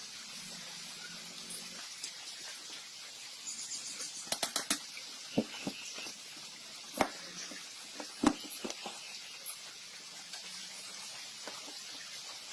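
Scattered sharp clicks and knocks of tools and parts being handled, a quick run of four about four seconds in and the loudest about eight seconds in, over a steady faint hiss.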